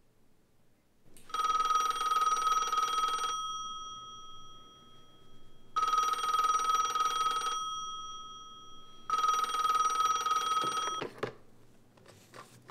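Landline telephone ringing three times, each ring about two seconds long. The third ring stops abruptly, followed by a few clicks and knocks as the handset is picked up.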